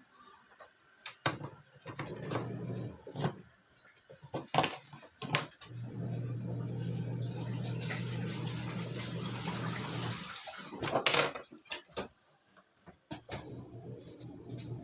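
Washing machine running: a steady motor hum that stops and starts. Over it, water rushes into the tub for a few seconds, and plastic clicks and knocks come from the machine, the loudest just after the hum stops.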